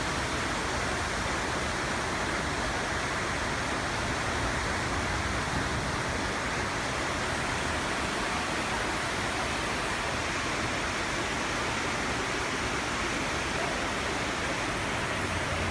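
Floodwater rushing, a steady unbroken noise of fast-running water.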